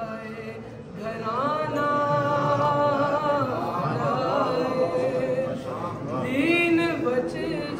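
A male voice chanting a devotional qaseeda unaccompanied, in long held notes that bend and slide. It falls briefly quieter at the start and swells back in about a second in.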